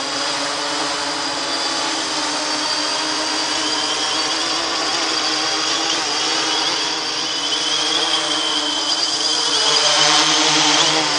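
3DR X8+ octocopter's eight brushless motors and counter-rotating coaxial props running steadily in hover, giving a whine made of several held tones that waver slightly in pitch. It gets a little louder near the end.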